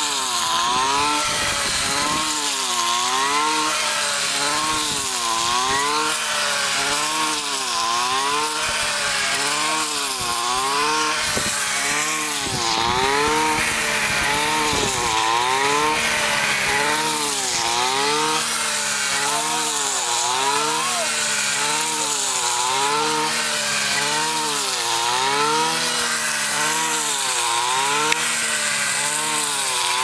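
Backpack brush cutter engine running at high speed while its blade cuts ripe rice stalks. The engine pitch sags and recovers about every second and a half as it takes load with each swing through the rice.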